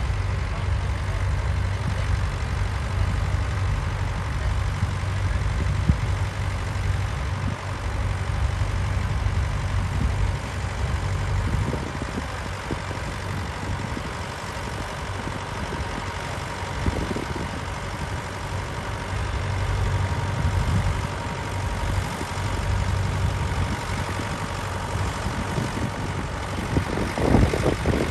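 Vintage tractor engine running steadily at low revs.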